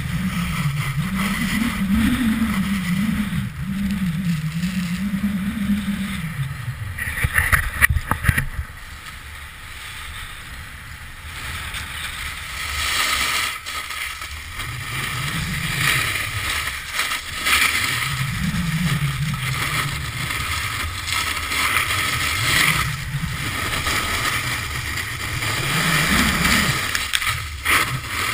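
Snowboard sliding and carving over packed snow, the edge scraping, with wind buffeting the camera microphone. There is a burst of harsher clattering about seven seconds in, then it is briefly quieter.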